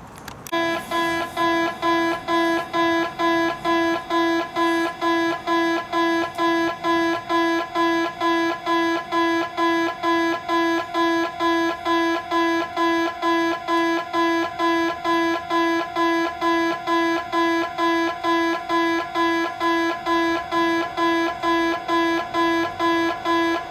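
Japanese railway level-crossing alarm ringing, an electronic bell repeating at about two dings a second, starting about half a second in as the barriers come down. It warns that a train is approaching the crossing.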